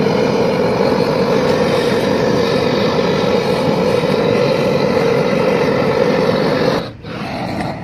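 Hose-fed handheld gas torch burning steadily as its flame heats a steel ladle of metal. The sound drops off sharply about seven seconds in.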